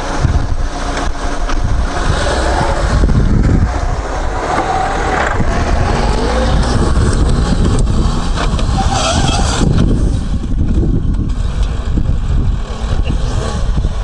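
Lada 4x4 Urban's four-cylinder engine revving hard in low-range first gear, pulling the car up a steep sandy slope.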